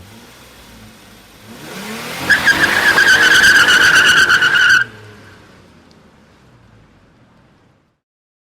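Car tyres screeching: a loud, high, steady squeal of about two and a half seconds that cuts off suddenly. Engine noise rises in pitch just before it, and a low rumble fades away after.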